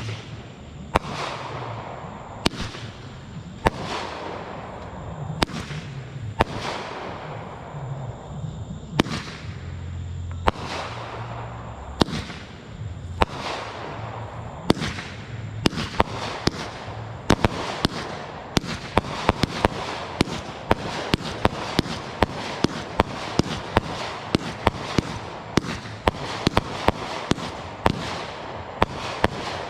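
Brothers Wind Up 500-gram, 36-shot consumer fireworks cake firing. Shots come about one every second and a half at first, then quicken from about halfway into rapid volleys of sharp reports: the cake building to its finale.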